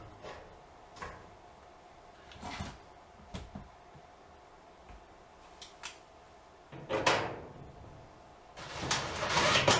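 Metal dryer parts being handled and fitted: scattered knocks and clicks, then a louder scraping clatter about seven seconds in and again near the end.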